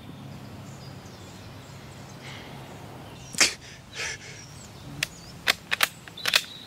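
A wounded man's two sharp, pained breaths about half a second apart, over a steady low background hum. Near the end comes a quick run of sharp clicks.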